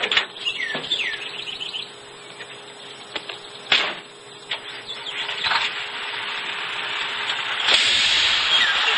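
Birds chirping with a few sharp clicks, then about three-quarters of the way through a loud, even rushing noise sets in and keeps going; film sound heard through a television speaker.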